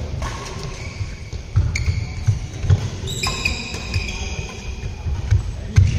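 Badminton doubles rally: sharp racket hits on the shuttlecock, with feet thudding and shoes squeaking on the synthetic court mat.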